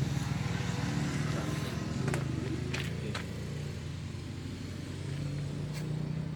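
Vehicle engine idling steadily with a low, even pulse, after its work is finished. A few short sharp clicks come about two to three seconds in.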